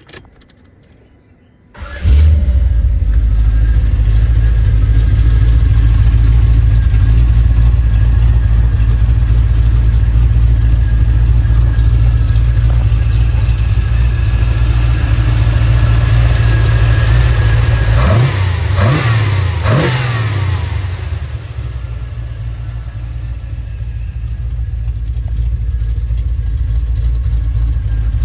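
Carbureted Chevrolet ZZ6 350 small-block V8 crate engine starting about two seconds in and catching at once, then running at a steady fast idle. Later it is blipped twice in quick succession, then drops to a lower idle that slowly climbs again. Its carburettor has just been tuned for performance, drivability and hard starting.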